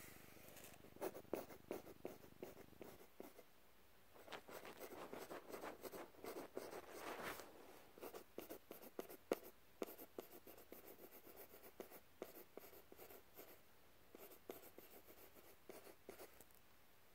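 Pencil scratching on paper in quick, faint strokes, busiest in a dense run about four to seven seconds in.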